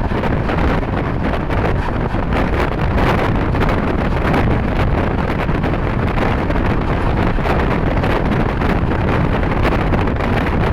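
Steady wind noise on the microphone: an unbroken loud rush, heaviest in the low end.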